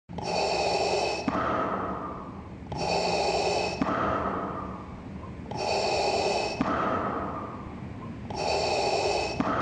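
Darth Vader's mechanical respirator breathing: four slow, even breaths, each a loud hissing stretch of about a second that then fades away.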